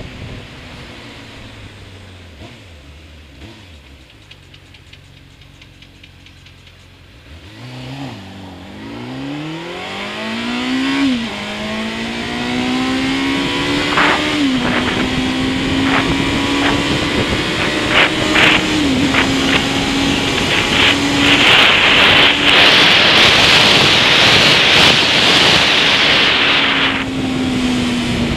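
Motorcycle engine heard from the rider's seat: running low for several seconds, then accelerating with a rising pitch that drops back at each upshift, three times. It then cruises with loud wind noise on the microphone that cuts off shortly before the end, as the engine pitch falls while easing off.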